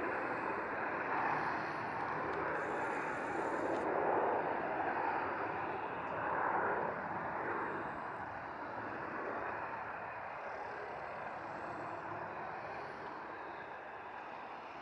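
Dassault Falcon 900 trijet's turbofan engines at takeoff power as it climbs away after takeoff: a steady rushing jet noise that slowly fades.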